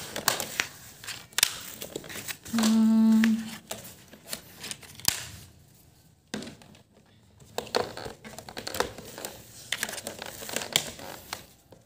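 Plastic shelf and frame parts of a stacking shoe rack clicking, knocking and rattling as they are pushed and fitted together. A short steady hum sounds about three seconds in.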